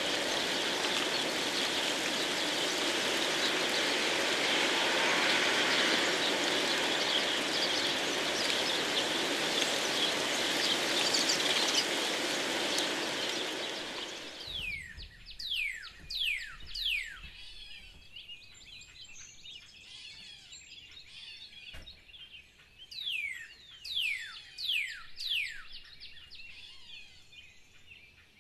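Steady noise of heavy rain and storm wind on the feeder camera's microphone, cutting off abruptly about halfway through. After it, birds call in short, sharply falling whistles, in two runs of about four.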